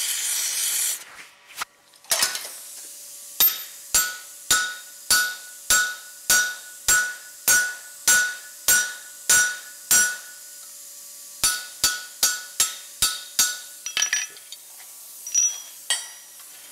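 Hammer blows on a rivet snap, closing a hot rivet through the joint of a pair of steel tongs on the anvil. There is a run of about a dozen ringing strikes at roughly one and a half a second, then after a short pause a quicker run of five and a few lighter taps near the end. It opens with the hiss of an oxyacetylene torch, which cuts off about a second in.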